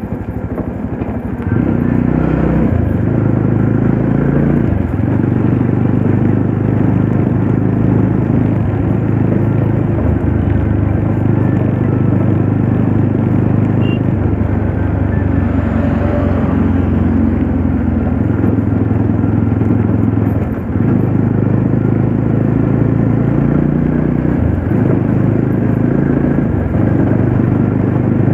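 Classic Legends Yezdi Roadster's 334 cc single-cylinder engine running under way at moderate road speed, heard from the rider's position with wind and road noise. The engine note steps up and down in pitch several times with the throttle, and grows louder about a second and a half in.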